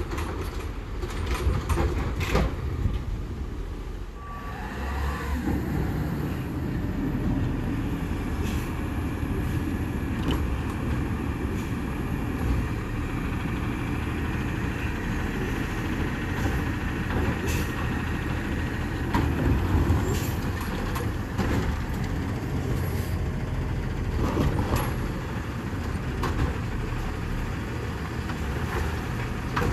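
Autocar ACX side-loader garbage truck's engine running as it pulls up between stops, with air-brake hisses and scattered metallic clanks. Near the end, the truck's automated side arm lifts and tips a cart into the hopper.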